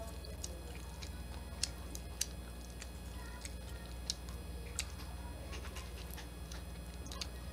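Fingers peeling the shell off a cooked shrimp: a handful of sharp little cracks and clicks, scattered a second or so apart, over a low steady hum.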